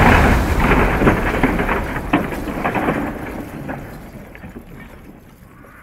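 Plastic Lego train cars falling off a bridge into a swimming pool: a loud rush of splashing with many sharp plastic knocks, thinning out and fading after about three seconds.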